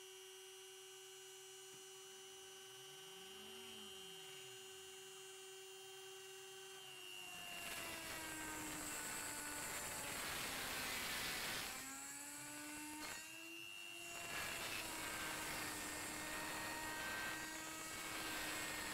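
Homemade CNC router's spindle running with a steady whine, then about seven seconds in the cutter starts engraving the workpiece: a hissing cutting noise rises over the motor, whose pitch sags under the load. The cutting briefly eases off around twelve to fourteen seconds in, then carries on.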